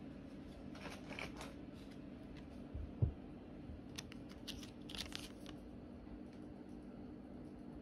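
Small laminated cosmetic sample sachet crinkling as it is handled in the fingers, in two short bouts about a second in and again around four to five seconds in, with a soft low thump about three seconds in. A faint steady hum lies beneath.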